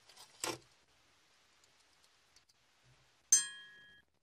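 A small toy car clicks against others in a plastic bowl about half a second in. Near the end a bright, bell-like chime strikes once and rings away.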